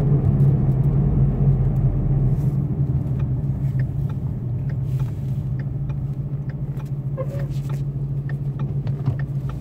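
Car engine running in gear, a steady low drone heard from inside the cabin, with faint irregular clicks over it. This is the rpm-linked rubbing click that the owner likens to a fan hitting something: it is there with the clutch engaged and goes away with the clutch pressed.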